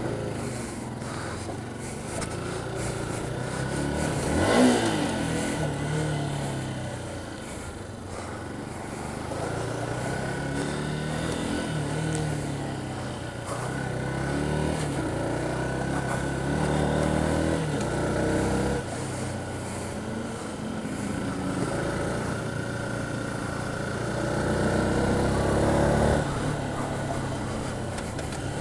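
Motorcycle engine heard from the rider's own bike, rising in pitch under acceleration and dropping back at each gear change, several times over, with road and wind noise. There is a brief loud swell about five seconds in.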